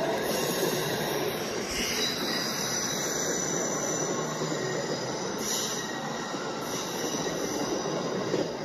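Motorised LEGO passenger train running past on plastic track: a steady whir from its motor and rolling wheels, with a faint high whine over it.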